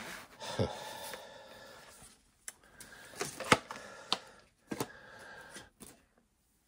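Plastic Betamax cassette cases being handled in a cardboard box: rustling with several sharp clicks and clacks as the cases knock together.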